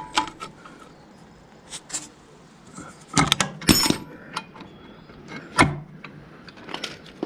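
Small steel parts and tools clinking and knocking as they are handled and fitted: a scatter of separate metallic clicks, some with a short ringing tone, with a cluster of louder clinks about three to four seconds in and another knock a little later.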